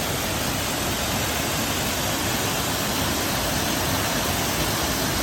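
Waterfall roaring: a steady, even rush of falling water.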